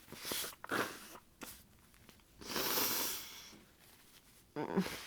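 A person with a congested head cold sniffling in short bursts, then a longer congested breath through the nose, and a sudden sneeze muffled into a tissue near the end.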